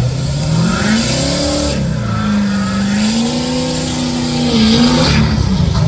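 Pickup truck engine revving under heavy load as it drags a weight-transfer pulling sled. The pitch climbs steeply in the first second and a half, dips, climbs again, and drops off near the end.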